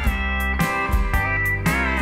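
Country music: a guitar sliding between notes over a steady drum beat.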